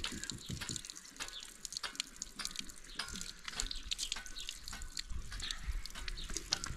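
Water splashing and dripping in irregular small splashes and drips.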